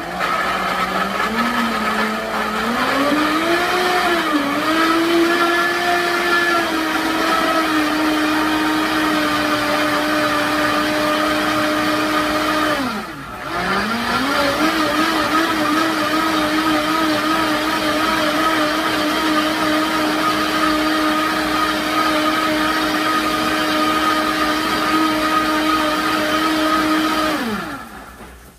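Countertop blender puréeing cooked cauliflower into a thick mash. The motor speeds up over the first few seconds and runs steadily. About halfway it slows briefly and speeds back up, then winds down and stops near the end.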